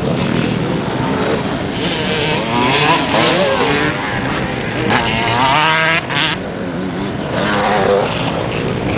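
Several off-road motorcycle engines revving, their pitch rising and falling over one another, with a burst of fast revving about five seconds in.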